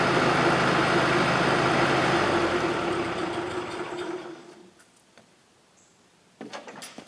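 Bobcat 610 skid-steer loader's Wisconsin gasoline engine running steadily, then switched off, winding down and stopping about four seconds in. A few light clicks follow near the end.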